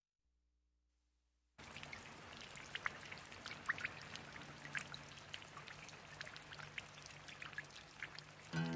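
Mountain stream water cascading over rocks, a steady rushing with many small sharp splashes and drips, cutting in suddenly about one and a half seconds in after near silence.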